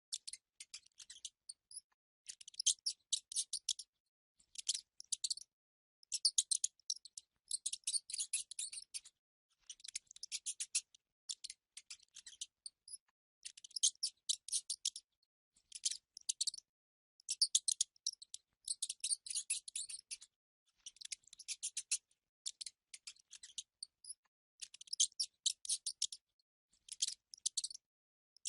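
Mice squeaking and chittering in quick, high-pitched trains of clicks. They come in short bursts about a second long, over and over, with silent gaps between.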